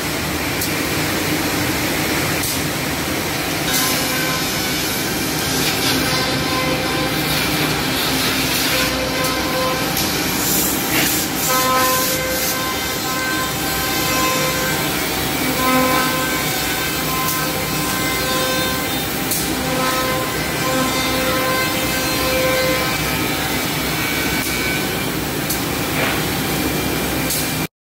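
Woodmaster four-head CNC mortising machine running, its spindles drilling and oscillating to cut mortises in wooden parts: a steady mechanical din with a whining note that comes and goes every second or two, and a few short knocks.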